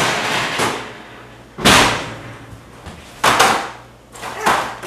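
Kitchen clatter: four sudden bangs and knocks, the loudest about a second and a half in, as things are handled at the counter.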